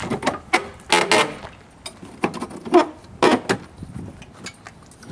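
Metal clanks, clicks and rattles as the hardware at the door of an Aliner A-frame camper is worked by hand, with a short squeal near the middle; the loudest knocks come about a second in and again around three seconds in.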